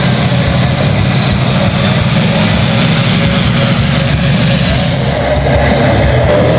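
Turbine engines of a large radio-controlled A-10 Warthog model jet running as it flies past, a steady loud rumble that grows a little louder near the end.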